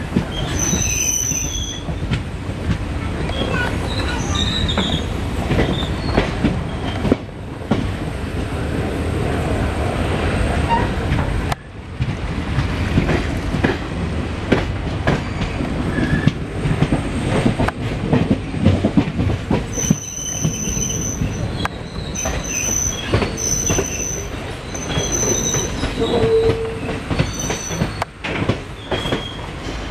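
Indian Railways passenger coach running around a curve: a steady rumble and rattle of wheels and bogies on the track, with high-pitched wheel flange squeal in short bursts about a second in and again several times in the last third.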